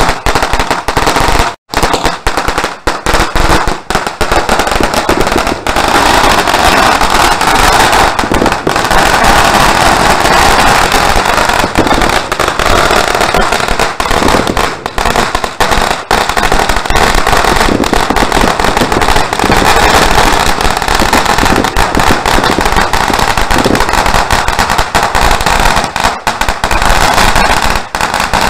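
A long string of firecrackers going off: a loud, dense, unbroken crackle of rapid bangs, with a very short break about a second and a half in.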